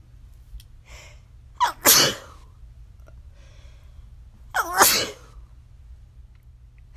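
A person sneezing twice, about three seconds apart, with a short in-breath before each sneeze.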